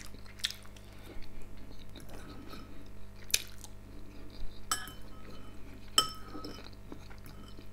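Metal cutlery clinking against ceramic bowls about four times, each clink sharp with a short ring, the loudest about six seconds in.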